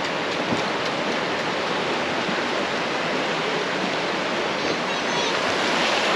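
Shallow, rocky creek running over stones: a steady rush of flowing water.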